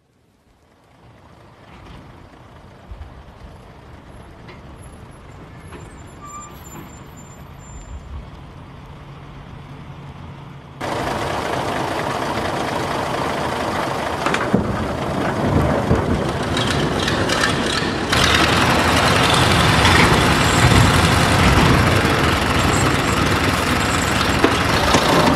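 A steady rushing noise with a low rumble beneath, fading in from silence and growing louder in two sudden steps, about a third of the way in and again past the middle.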